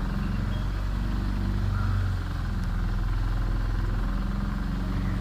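Motorboat engine running steadily at cruising speed, a constant low drone.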